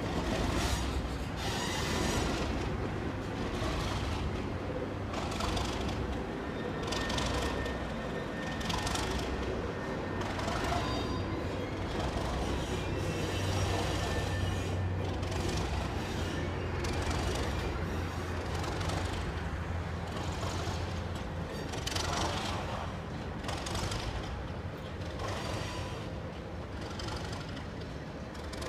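Ex-Tasmanian Government Railways Y class Bo-Bo diesel locomotive's engine running at a steady low hum in the distance. Irregular louder rushes of noise come and go over it.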